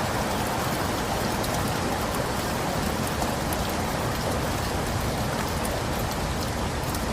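Steady rain falling: an even hiss with faint scattered drop ticks and no thunder.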